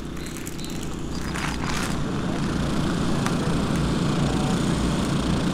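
A steady low mechanical drone that grows slowly louder, with a few faint clicks.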